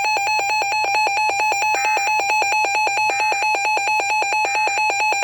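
Electronic emergency alert tone beeping rapidly and evenly, about ten beeps a second, one high pitch with overtones at a steady loud level: the attention signal that comes with a severe thunderstorm warning broadcast.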